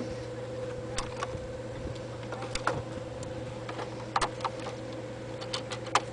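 Light clicks and knocks from the parts of a folding kayak's frame being fitted together by hand, irregular and a second or so apart, the sharpest around four seconds in and near the end, over a steady low hum.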